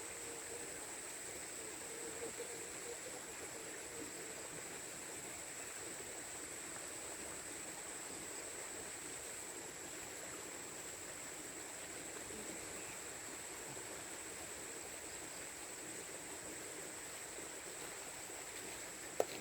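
Steady rainfall in woodland, an even hiss, with a steady high-pitched tone running over it. A single sharp tick comes just before the end.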